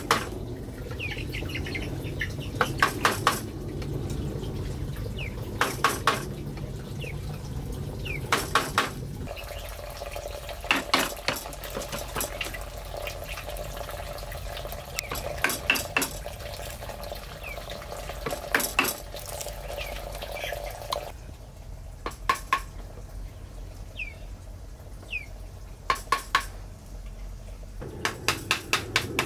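Short bursts of sharp knocks, three to five quick strikes at a time, repeating every three seconds or so, with small birds chirping faintly in between.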